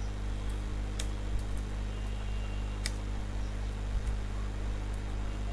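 A few sparse computer keyboard keystrokes, the clearest about a second in and about three seconds in, over a steady low electrical hum.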